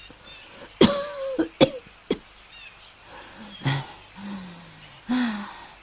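A sick, dying woman coughing: three sharp coughs in quick succession about a second in, then two weaker coughs later on with a low, falling moan between them.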